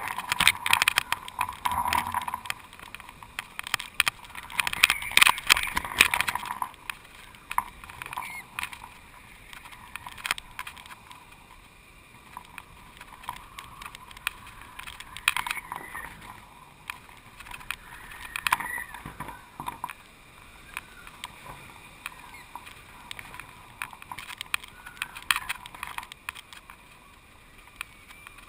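Wind buffeting a GoPro carried aloft on a small kite, with irregular rattling and flapping clicks from the kite rig. It is gustier and louder in the first six seconds, then settles to scattered crackles.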